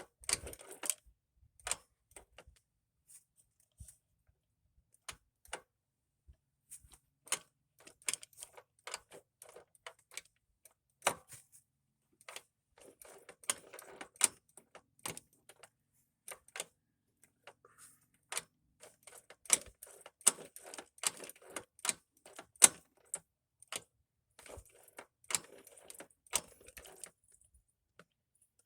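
Irregular light clicks and clatter of hand tools and small metal and plastic parts being handled while working on a scooter's fuel line, with a few sharper knocks in the second half.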